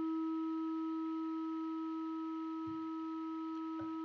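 Steady synthesized tone from AudioMulch's Harmonics signal generator: a low fundamental with two fainter higher partials, held unchanged. Two faint clicks come near the end.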